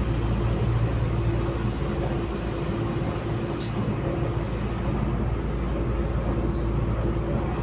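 Interior running noise of an Auckland AM class electric multiple unit travelling along the line: a steady low rumble of wheels on rail with a steady hum over it, and one brief sharp tick about three and a half seconds in.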